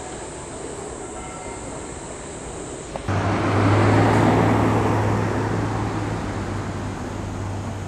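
City street traffic rumble. About three seconds in it jumps suddenly louder, swelling into a heavy rumble with a steady low hum, then slowly fades.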